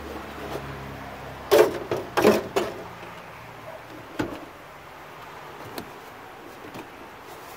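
Knocks and rattles of the rear HVAC housing of a Ford E350 van being shifted upward for clearance: a cluster of loud knocks about a second and a half in, another knock around four seconds, then a single click. A low hum dies away in the first three seconds.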